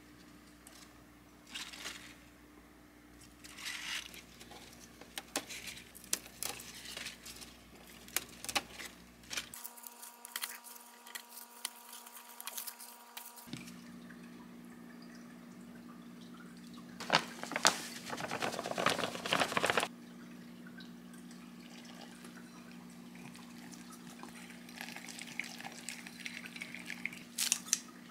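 Fresh romaine lettuce being handled: leaves rustling and being picked, then about three seconds of water running in the middle. Near the end, kitchen scissors snip the leaves.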